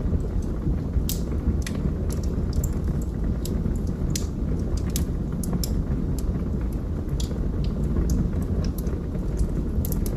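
Wood fire burning in a fireplace: a steady low rumble of the flames with frequent, irregular sharp crackles and pops from the burning wood.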